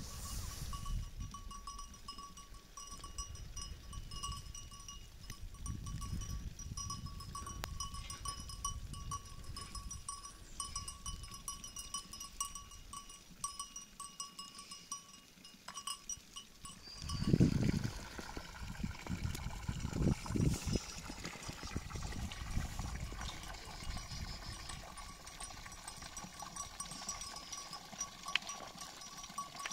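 Bells on a herd of goats ringing steadily as the goats walk through snow, with a loud low thump about two-thirds of the way through and more crowded ringing and animal sounds after it.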